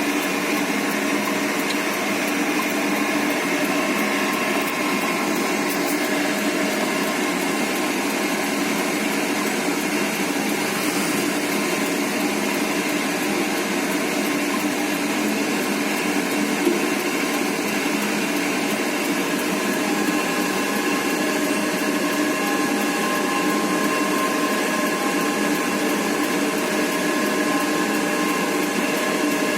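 A motor running steadily: a constant droning hum with several steady tones that holds the same speed throughout.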